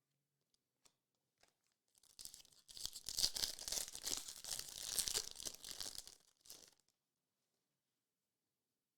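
Trading card pack wrapper being torn open and crinkled: a run of crackly tearing that starts about two seconds in and lasts about four seconds.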